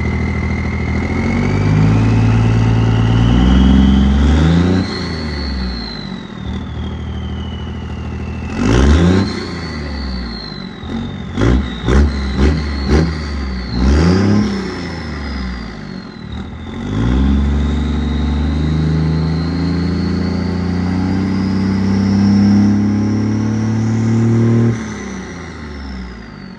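1999 24-valve Cummins 5.9 diesel with a Fleece Cheetah turbo and 4-inch straight pipe, free-revving at idle. The turbo's loud whistle climbs and falls with each rev over the diesel exhaust. A slow rev, then a sharp one, a quick run of blips, and a long held rev near the end before the whistle winds down.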